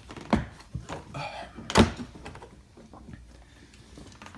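Hard plastic toolkit case being handled and opened: a few sharp clicks and knocks, the loudest about two seconds in, then a quieter stretch.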